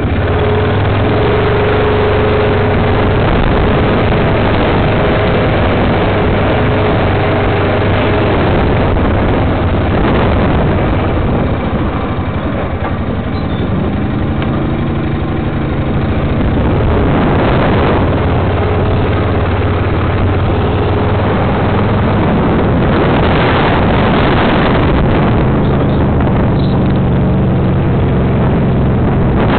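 Honda Rincon ATV's single-cylinder four-stroke engine running under way. It eases off for a few seconds about halfway through, then its pitch rises as it speeds up again.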